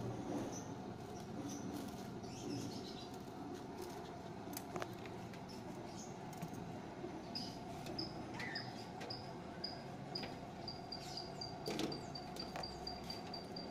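Quiet handling at a noodle cart: light clicks and rustles from utensils and plastic over a steady low hum. About halfway through, a high chirp starts repeating a few times a second and slowly speeds up.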